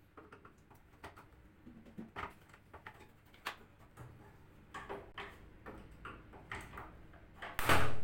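Flat-blade screwdrivers prying at the plastic rear top panel of a Sharp top-loading washing machine: scattered clicks and scrapes of plastic, then a louder clatter of the panel near the end.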